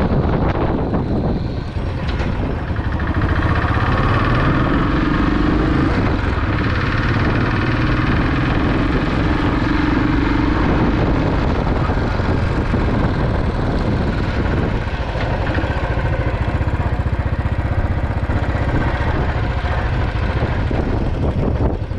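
Royal Enfield Classic 500's air-cooled single-cylinder engine running steadily, freshly refilled with new oil after an oil and filter change.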